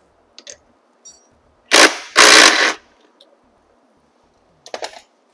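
Impact wrench with a 15 mm socket firing in two loud bursts, a brief one then one of about half a second, undoing the footpeg bolt; a few light metallic clicks from the tool and parts before and after.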